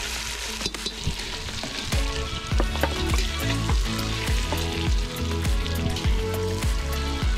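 Chicken pieces sizzling as they brown in hot oil in a cast-iron potjie pot, with a utensil turning them. Background music with a steady beat plays over it.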